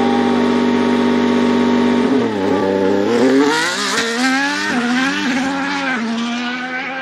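Ferrari SF-23 Formula 1 car's 1.6-litre turbocharged V6 hybrid engine at high revs: a steady note for about two seconds, a dip, then rising pitch with several quick upshifts as it accelerates, before settling and starting to fade near the end.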